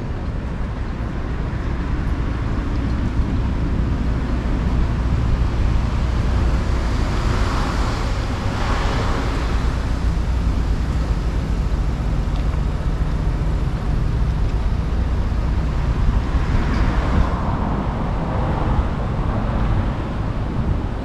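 Street traffic: a steady low rumble of road vehicles, with one vehicle passing close about eight seconds in and another around seventeen seconds in.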